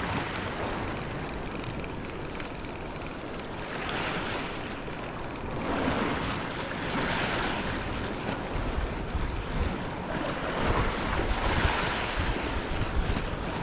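Sea waves washing in a few seconds apart, with wind rumbling on the microphone.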